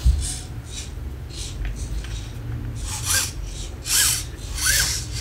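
Eilik desk pet robot giving a string of short, cute electronic chirps, each rising then falling, about one a second in the second half. Before them there is a thump at the start and faint rubbing from the robot being handled.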